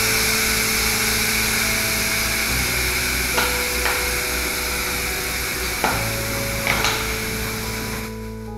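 Steam hissing out of a Fun Kitchen electric pressure cooker's release valve as the pressure is let down after cooking, slowly fading and dying away about eight seconds in. A few sharp clicks come in the middle, over background music.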